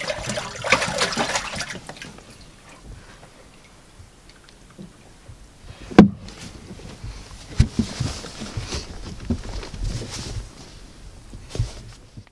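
Water splashing and sloshing in a boat's livewell as a hand grabs a bass and lifts it out, with a sharp knock about six seconds in and scattered thumps after.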